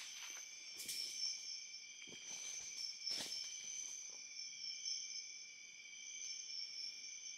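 Night insects, crickets among them, chirring steadily at several high pitches. Two brief rustles of steps in dry leaf litter about one and three seconds in.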